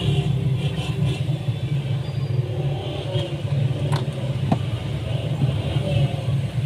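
Steady low rumble, with faint voices in the background and a couple of sharp clicks about four seconds in.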